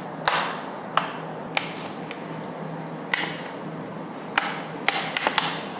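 Clips of a Dell Vostro 5620's metal bottom cover popping free one after another as a triangular pry tool works around the edge. About ten sharp clicks at uneven intervals, several in quick succession near the end.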